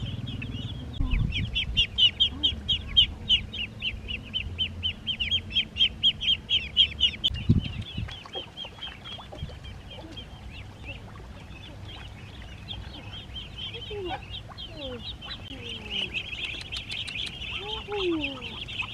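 Ducklings peeping rapidly, a dense run of short high peeps, loudest and busiest in the first half, thinning out in the middle and swelling again near the end. Low rustling and a single thump about seven and a half seconds in sit under the first half.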